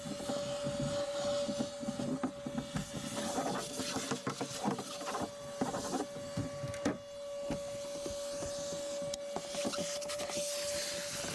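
Shop vac running with a steady whine, sucking up dirt and debris from a boat's crevices. Bits rattle and click through the hose for the first several seconds, with one sharp click about seven seconds in, then the air draw settles into a steadier hiss.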